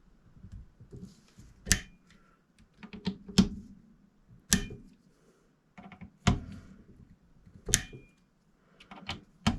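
Sharp metallic clicks from a torque driver set to 15 inch-pounds as scope ring screws are tightened: about six loud clicks roughly a second and a half apart, some with a short ring, and fainter clicks in between.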